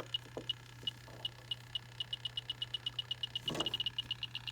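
Electronic refrigerant leak detector ticking, slowly at first and then speeding up to a rapid tick about halfway through as its probe picks up refrigerant at the corner of the evaporator coil. A steady low hum runs underneath, and there is a brief rustle a little past halfway.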